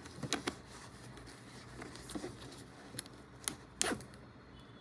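A bag zipper's slider being run along its worn chain in several short, quick strokes.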